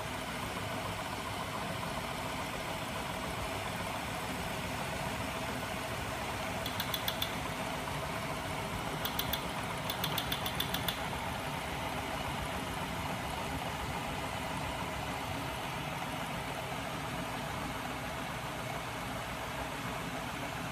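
Homemade magnet engine running, its 12-volt DC electric motor spinning shafts and magnet rotors on pillow-block bearings: a steady mechanical running noise with a faint hum. Short runs of quick, sharp ticks come about a third of the way in, again a couple of seconds later, and for about a second just after that.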